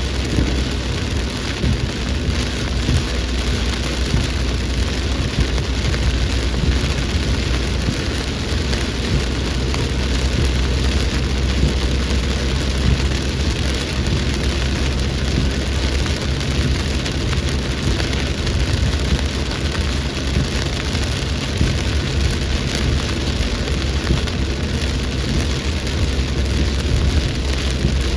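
Heavy rain falling steadily in a storm, with a constant low rumble beneath it.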